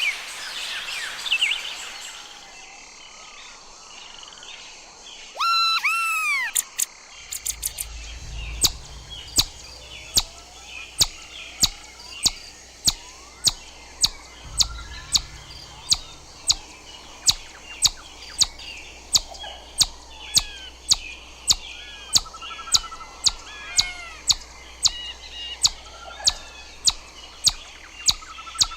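Chipmunk giving a long, steady series of sharp chip calls, about one and a half a second, with birds singing faintly behind. A few seconds in there is a short run of loud arching chirps.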